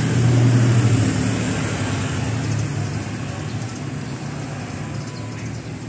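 A car engine running close by, a steady low hum that fades over the first few seconds, over street traffic noise.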